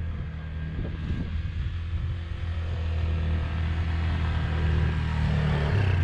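2008 Yamaha Grizzly 450 ATV's single-cylinder engine running steadily at low speed, picking up a little in pitch and loudness near the end.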